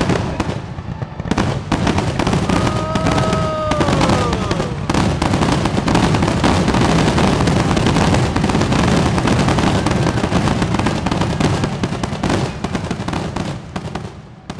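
Fireworks going off in a dense barrage of rapid bangs and crackles, thickest in the middle, thinning out in the last second or so.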